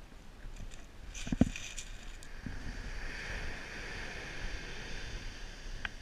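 Surf washing up a shingle beach, with wind on the microphone. A few clicks and one sharp thump come about a second and a half in.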